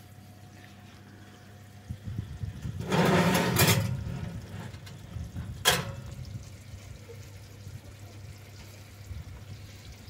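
A glass baking dish of baked beans being slid out on a wire oven rack: a brief scraping rush about three seconds in and a sharp knock near six seconds, over a steady low hum.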